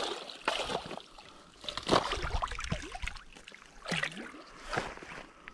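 Shallow lake water sloshing and splashing in irregular bursts, stirred by someone wading at the margin, the strongest about two seconds in.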